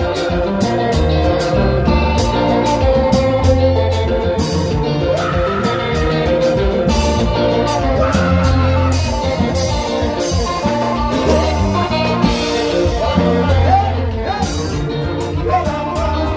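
Live konpa band playing: an electric guitar picks a lead line over bass and drums, with a steady cymbal beat running through.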